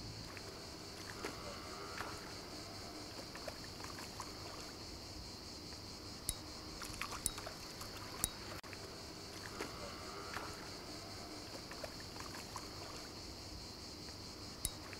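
Light splashing of a hooked fish struggling at the surface of the water, with a few small sharp ticks between about six and eight seconds in and again near the end. A steady high chirring of crickets runs underneath.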